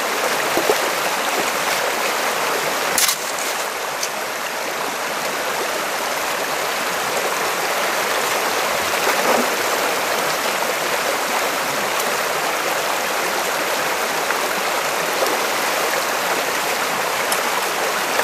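Fast stream water rushing steadily through and around an aluminum sluice box set in the current. There is a single brief knock about three seconds in.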